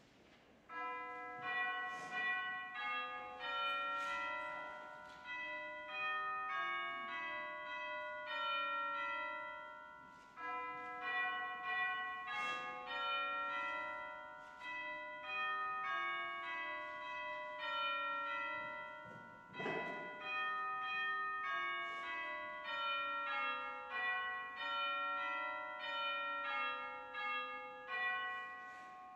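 Bells ringing a slow melody before the service, each note struck and then fading, a new note about every half second.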